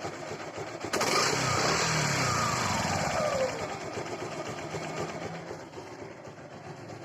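Suzuki Gixer's single-cylinder engine running with no rattle, its timing chain now held tight by the repaired tensioner. It gets louder about a second in, then the revs drop back toward idle in falling sweeps.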